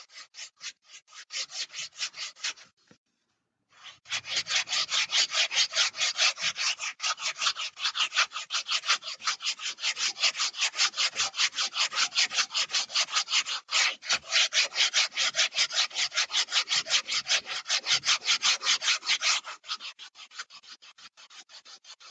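A 120-grit sandpaper block scraping rapidly back and forth over the edge of a styrofoam model-airplane wing, about four strokes a second, shaping a taper into the trailing edge. The strokes stop briefly about three seconds in, then run steadily and grow lighter near the end.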